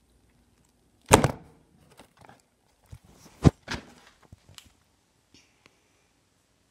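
A few knocks and thuds right at the recording phone as it is bumped and moved about on a wooden floor. Two loud ones land about a second in and about three and a half seconds in, with lighter knocks between.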